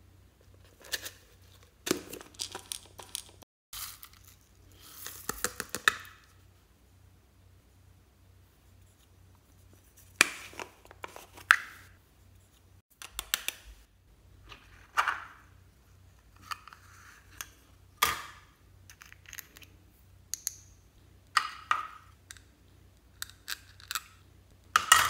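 Small plastic pots being handled and opened, with sharp clicks as their lids come off and short rustles as glitter and sequins are tipped out, in a string of separate short sounds at irregular intervals.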